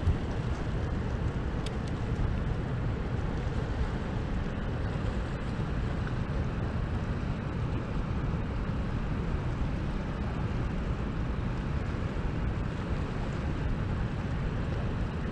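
Steady rumbling noise of wind and rough, fast-flowing water, with no distinct events.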